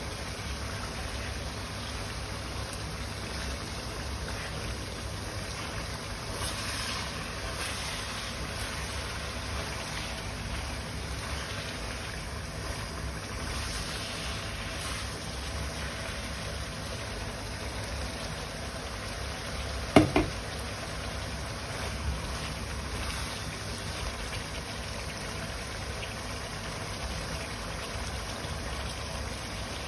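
Adobo bubbling steadily as it simmers in a nonstick frying pan, over a steady low hum, with a plastic spatula stirring and scraping through the meat and knocking sharply twice against the pan about two-thirds of the way in.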